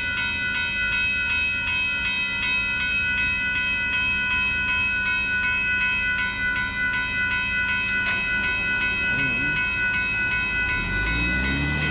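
A grade-crossing warning bell ringing in rapid, even strokes, about three a second, over the rumble of a Union Pacific hopper car freight train rolling through the crossing. The strokes blur into a steady ring for the last few seconds.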